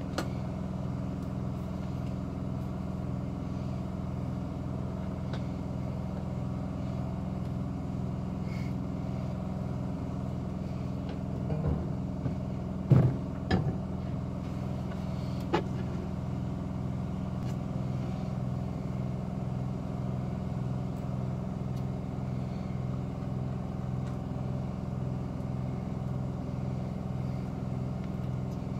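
A steady low machine hum with a slow, even pulse, and a few sharp knocks about halfway through.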